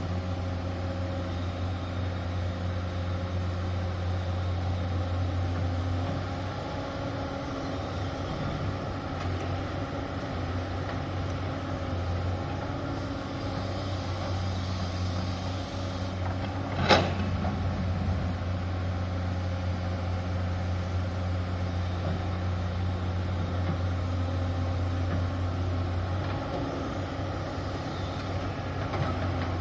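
Heavy diesel engine of road-building machinery (excavator and dump truck) running steadily, with one sharp metallic clank about halfway through.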